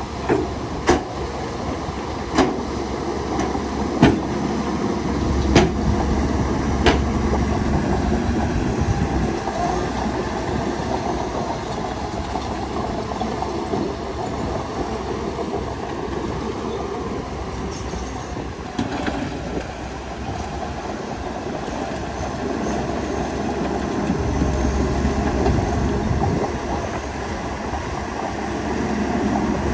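Shantui DH17C2 crawler bulldozer running under load, its engine rumbling steadily with its tracks clattering, and six sharp knocks in the first seven seconds.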